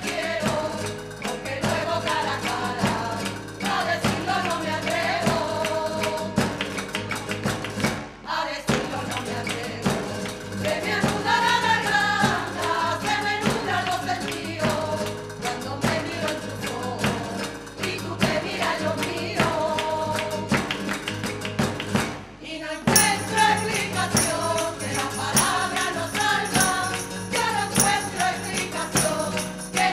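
A women's choir singing a sevillana together, accompanied by Spanish guitar, hand clapping, a stick-beaten drum and a tambourine. The music breaks off briefly twice.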